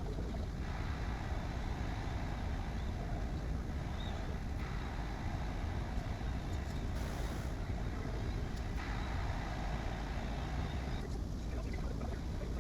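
Bambu Lab A1 3D printer running: a steady low machine rumble and fan hiss, with a brighter whirring that starts and stops in stretches of a few seconds as the print head moves.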